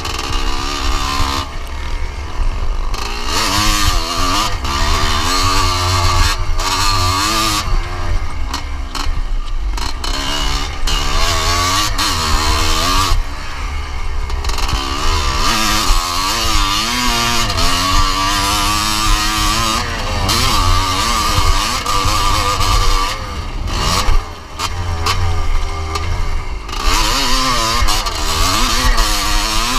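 1981 Yamaha YZ250's single-cylinder two-stroke engine revving hard and falling back again and again as it is ridden around a motocross track, with wind buffeting the microphone. The throttle shuts briefly about two-thirds of the way through.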